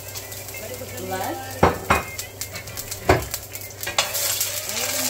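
Sliced garlic sizzling in hot olive oil in a frying pan, a steady crackling hiss. A metal slotted spoon stirs it, knocking against the pan four times, the first knock the loudest.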